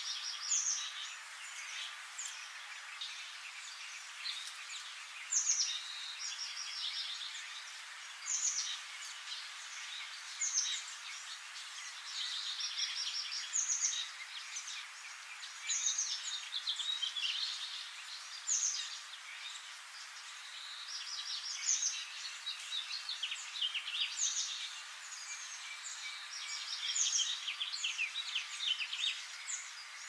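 Several songbirds singing, with short high phrases of rapid repeated notes and quick down-slurred whistles every couple of seconds, often overlapping, over a faint steady hiss.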